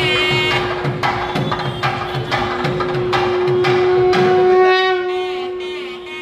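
Traditional wedding music: rapid drumming under a wind instrument holding one long steady note, with wavering higher notes coming in about four seconds in.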